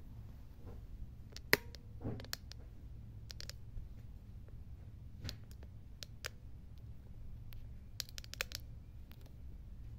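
Light handling noise: scattered small clicks and taps, with a sharper click about a second and a half in and a quick cluster near the end, over a low steady hum.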